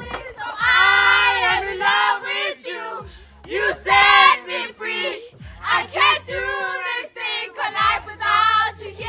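A group of young women singing loudly along to a song, over the deep held bass notes of the music playing.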